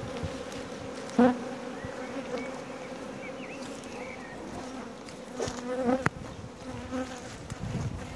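Honeybees buzzing in a steady hum around an opened hive and a frame covered in bees. A single sharp knock about a second in, and a smaller click near six seconds.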